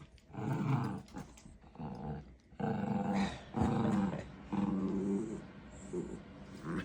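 Puppies growling in play: a string of rough growls, each lasting about half a second to a second, with short breaks between them.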